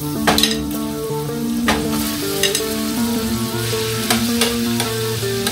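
Raw shrimp sizzling in hot oil in a stainless steel skillet as they are added and stirred, with a metal utensil clicking against the pan now and then. Soft background music with held notes plays underneath.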